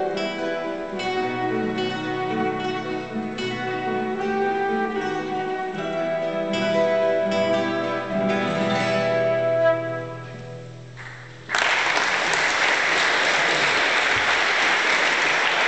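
Classical guitar ensemble playing the closing bars of a slow piece, the last chord ringing and fading away. About eleven seconds in, audience applause breaks out suddenly and carries on.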